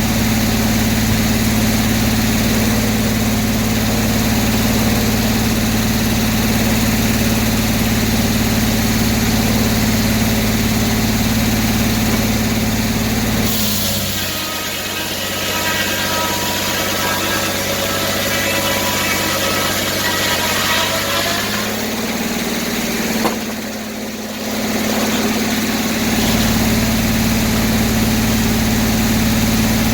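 Gasoline engine of a circular sawmill running steadily. About fourteen seconds in, its low hum gives way for some eight seconds to a higher, ringing whine. A sharp click comes about twenty-three seconds in, with a short dip before the steady running returns.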